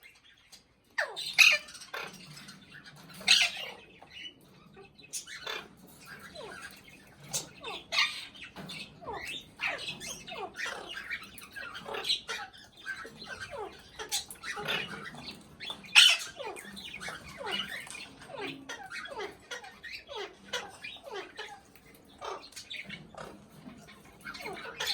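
Pet parrot squawking and chattering: a quick run of short, falling calls with several louder squawks mixed in, the loudest about sixteen seconds in.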